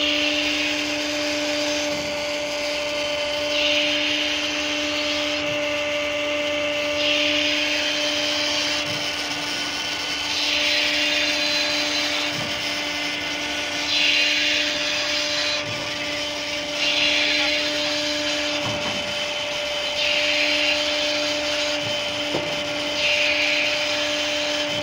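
Ship's deck winch running steadily under power: a steady motor hum with a hiss that swells and fades every two to three seconds.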